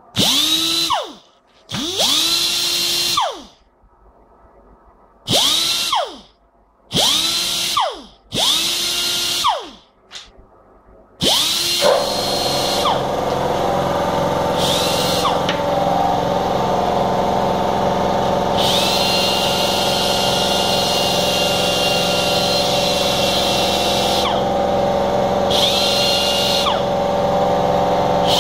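Chicago Pneumatic air die grinder, which the owner calls faulty, run in five short bursts, each spinning up to a high whine with a rush of air and winding down again. From about eleven seconds in, a steady lower machine drone with several tones sets in and keeps going, while the grinder's whine and hiss come and go over it.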